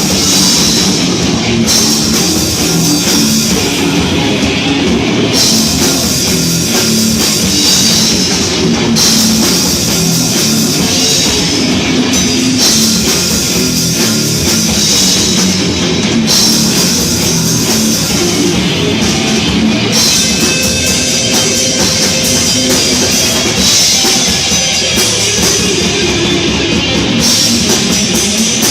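Heavy metal band playing live: distorted electric guitar, bass and a drum kit with cymbals, loud and dense throughout.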